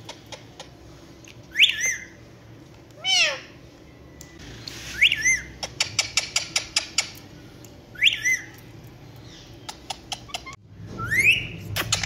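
Indian ringneck parakeets giving short whistled calls about five times. Most calls glide upward and one glides downward. A run of quick clicks comes between them around the middle.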